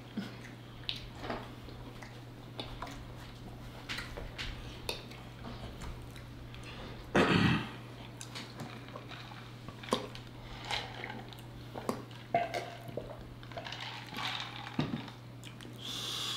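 Close-miked eating: forks clicking against dishes, with chewing and mouth sounds, and one louder short sound about seven seconds in, over a steady low hum.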